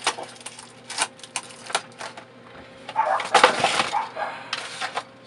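Hard plastic clicking and rattling as small parts are handled: stick tips being fitted onto an RC transmitter's control sticks. There are a few sharp separate clicks, then a denser clatter about three seconds in.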